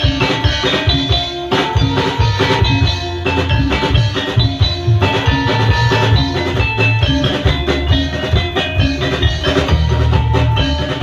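Javanese gamelan music played live: saron metallophones and gongs together with a drum kit keeping a steady beat over low held bass notes.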